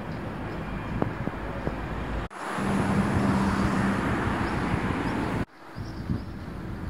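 Outdoor street ambience with traffic noise, cut abruptly twice. The louder middle stretch carries a steady engine hum from passing traffic.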